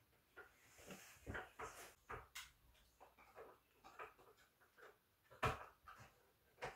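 Faint scattered clicks and light knocks from handling a small LED work lamp and switching it between light modes, the sharpest click about five and a half seconds in.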